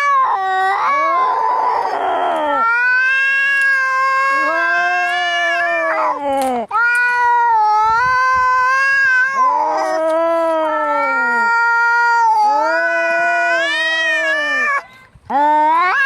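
Angry cats caterwauling as in a cat fight: a harsh hiss about a second in, then a string of long, drawn-out yowls that rise and fall in pitch, with a short break near the end.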